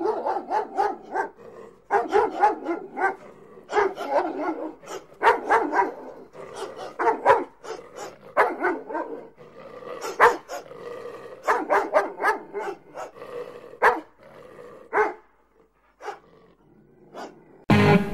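Dog barking in quick runs of barks, with short gaps between the runs, fading out in the last few seconds.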